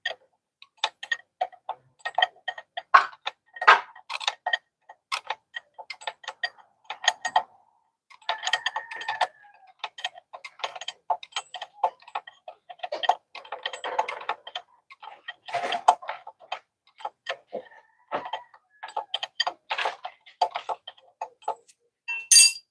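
Metal wrench working a hydraulic line fitting on a Detroit DT12 transmission: many quick, irregular metallic clicks and taps in clusters as the top range-selection line is loosened. Near the end, one louder sharp clink with a brief ring.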